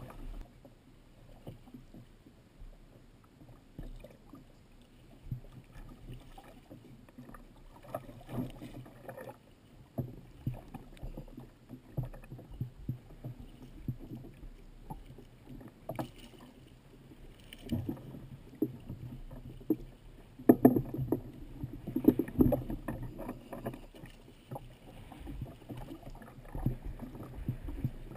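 Sea water slapping and lapping against the hull of a fishing kayak, with irregular knocks and splashes, loudest for a few seconds about two-thirds of the way through.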